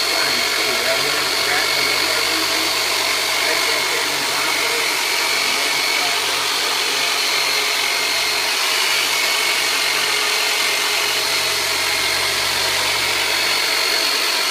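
Turbonator electric massager running steadily as it is worked over a patient, a constant motor buzz with a steady high whine.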